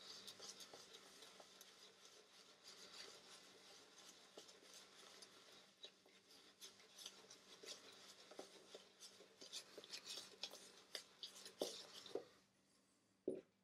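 Faint wet rubbing and crackling of a synthetic shaving brush swirling tallow shaving-soap lather on a bearded face. It stops about twelve seconds in, with a couple of small clicks after.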